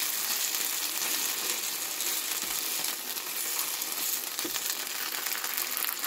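Dumplings frying on a griddle: a steady sizzle.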